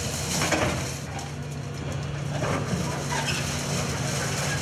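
Heavy construction machine's diesel engine running steadily at a demolition site, with two short clattering noises about half a second and two and a half seconds in.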